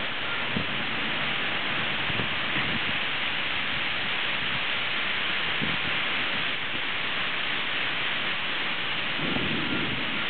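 Heavy downpour: the steady hiss of rain pouring onto the street and trees. A low rumble swells about nine seconds in.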